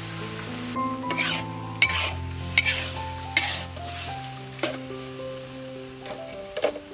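Metal ladle scraping and stirring pieces of cow heart in a sizzling wok, one stroke every second or so over the steady sizzle of frying.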